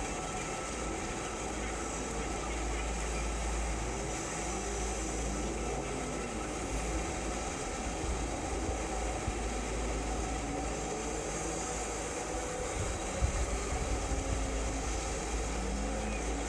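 Steady ride noise of a moving vehicle: a continuous low rumble with hiss above it.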